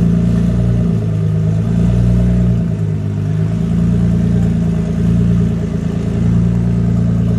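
Nissan GT-R R35's twin-turbo V6 idling steadily, with the idle wavering slightly between about two and three and a half seconds in.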